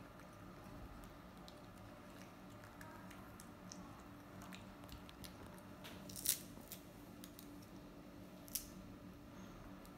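Baby macaque chewing lotus seeds and picking at lotus seed pods: faint small crunches and clicks over a low steady hum, with two sharper clicks about six and eight and a half seconds in.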